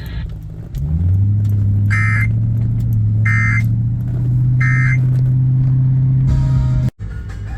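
Three short warbling data bursts about 1.3 seconds apart, the Emergency Alert System end-of-message tones that close a weather radio warning. They sound over a loud, steady low hum that starts about a second in and cuts off suddenly near the end.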